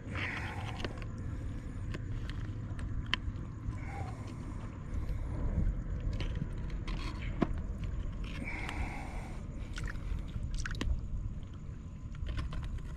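Small clicks and rustles of hands working a lure's treble hook free from a snook's mouth, over a steady low rumble.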